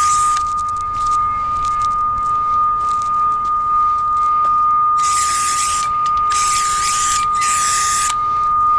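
Utility cable locator receiver sounding a steady, high, unbroken tone as it picks up the signal on a buried power cable. About five seconds in come three short hisses, typical of a spray-paint can marking the cable's line on the ground.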